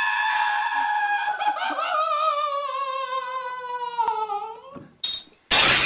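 A man's long, high-pitched scream, held steady, then wavering and sliding down in pitch until it dies away at about four and a half seconds. Near the end comes a loud crash.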